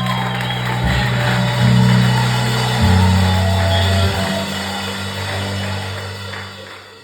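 Live church band music with drums and held bass notes that change every second or two, fading out toward the end.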